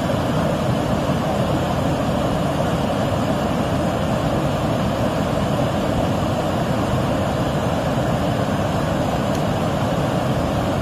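Steady rushing of a stream swollen by heavy rain, an even, unbroken water noise.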